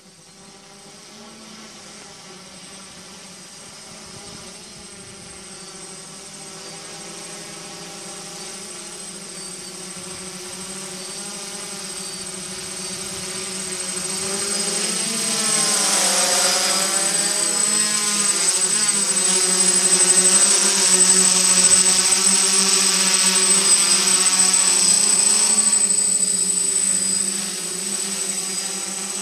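DJI F550 hexacopter's six motors and propellers buzzing in flight, with a thin steady high whine above them. It grows steadily louder as the drone comes closer, the pitch wavers up and down around the middle as the motors change speed, and it eases off a little near the end.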